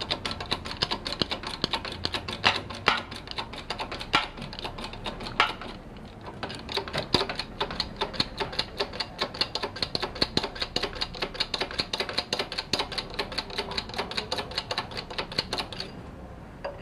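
Rapid, even mechanical clicking, about ten clicks a second, with a few louder knocks in the first few seconds. It stops abruptly near the end.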